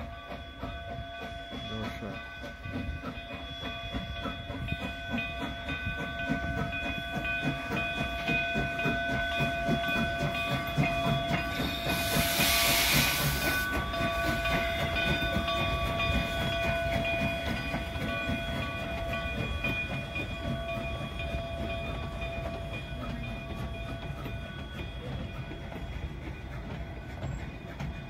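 Narrow-gauge steam locomotive No. 488, a K-36 Mikado, rolling slowly past at close range, then its passenger cars, with a steady rumble of wheels on rail and several steady high tones. A loud burst of steam hiss comes about halfway through as the engine goes by.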